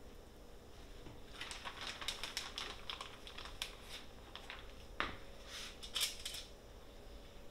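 Hands working at a kitchen counter while preparing fish fillets: a run of light, irregular clicks and crinkles, with one sharper knock about five seconds in.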